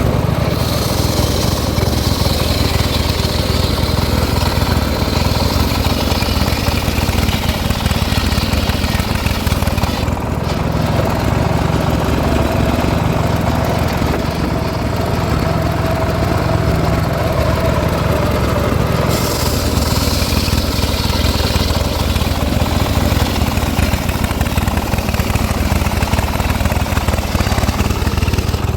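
Engine-driven circular saw running steadily while sawing teak wood. The high cutting noise eases for a stretch in the middle and picks up again later.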